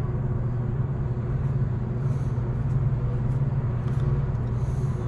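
Steady low machinery hum with a few faint light clicks over it.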